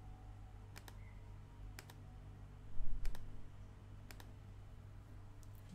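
Computer mouse clicks, about five, some in quick pairs, roughly a second apart, over a low steady hum. A dull low thump comes about halfway through and is the loudest sound.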